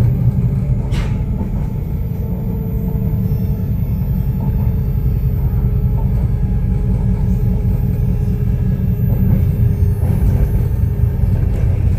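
Copenhagen Metro train running along the track, heard from inside the car: a steady low rumble with a faint whine held above it. There is a single knock about a second in.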